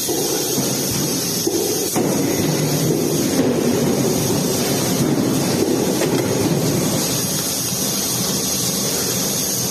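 Steady industrial machinery noise, a dense rumble with hiss, from a six-axis robot working a stamping line. It gets slightly louder about two seconds in, with no distinct press strikes.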